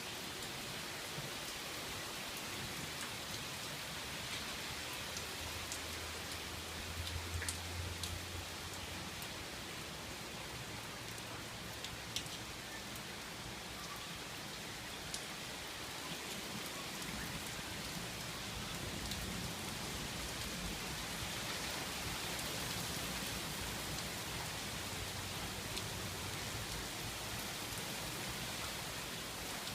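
Steady heavy rain pouring down at the tail end of a hailstorm, with scattered sharp taps through it and a brief low rumble about seven seconds in.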